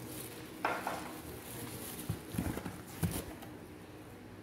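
Light knocks and rustling as small cardboard boxes of green tea are handled and set down in a cardboard carton, with a brief higher sound less than a second in.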